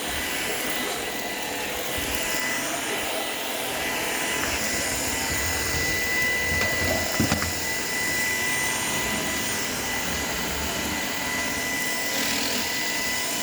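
Shark PowerDetect robot vacuum running on an area rug: a steady whir of the suction motor and brush with a thin high whine over it, and a couple of sharp clacks about seven seconds in.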